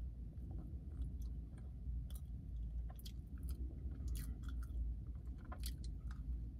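A person chewing a frosted Pop-Tart toaster pastry with the mouth close to the microphone: soft, irregular crunches and mouth clicks, a few louder ones around the middle and near the end, where a fresh bite is taken. A low steady hum runs underneath.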